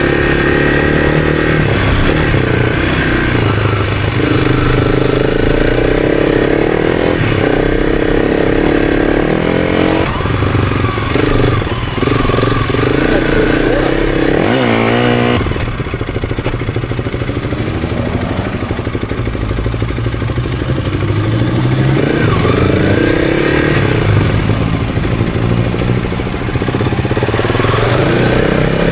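Honda CRF300's single-cylinder engine running under load while ridden through sand, its pitch climbing and dropping again and again with throttle and gear changes, with a quieter, lower-revving stretch around the middle.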